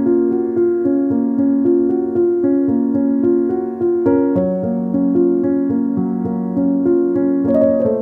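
Background piano music: a melody of held notes changing every half second or so over a lower bass line.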